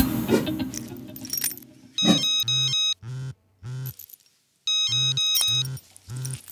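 Mobile phone ringing: an electronic ringtone sounding twice, each ring about a second and a half of rapid pulses, after music fades out.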